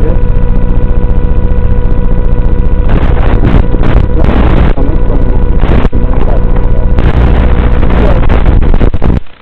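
Electric motor and propeller of a small FPV flying wing, heard from on board: a steady motor whine with wind rushing over the microphone in two long stretches, about three and seven seconds in. The sound drops off sharply near the end.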